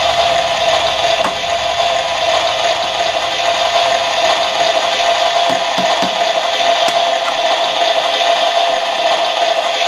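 Toy electric cooker's hob sound effect: a loud, steady electronic hiss with a hum running under it.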